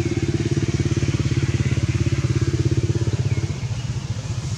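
A motorbike engine running steadily nearby, a low rumble of rapid even firing pulses that eases off a little after about three seconds.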